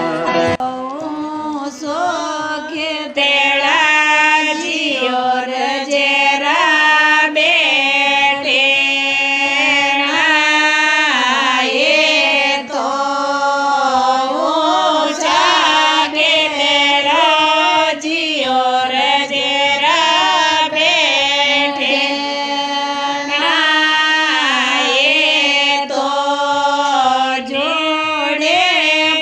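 Marwari ratijoga devotional folk song to Bheruji, sung in a chant-like melody over a steady held note.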